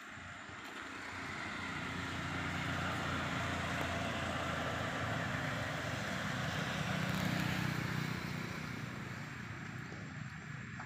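Motor vehicle going past, its engine swelling over several seconds, loudest about two-thirds of the way in, then fading.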